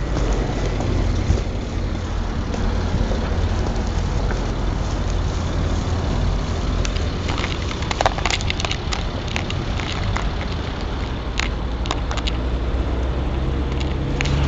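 Low, steady hum of a motor vehicle engine running, under rustling noise, with a few sharp clicks about eight and eleven seconds in.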